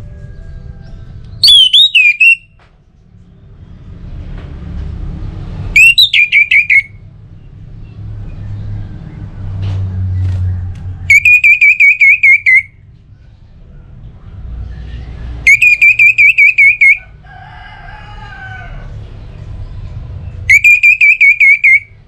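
Orange-headed thrush singing its loud, clear whistled song: five short phrases of rapid warbling whistles, each about a second long, a few seconds apart.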